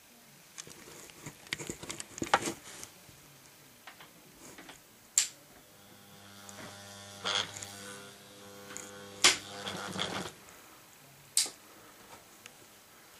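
Small electric motor of a 00 gauge model A4 locomotive humming steadily as it creeps along, starting about five seconds in and stopping about ten seconds in, with scattered sharp clicks and ticks throughout.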